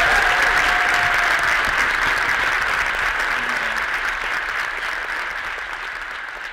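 Audience applauding, the applause slowly fading out.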